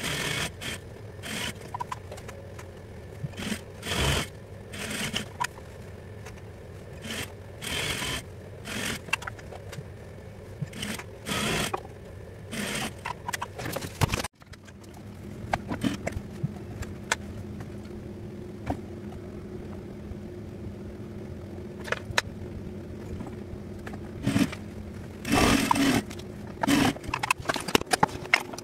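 Sewing at a Juki industrial sewing machine: short irregular runs of stitching and fabric handling sounds. After a sudden break about halfway, a steady motor hum sets in, with a few more short runs near the end.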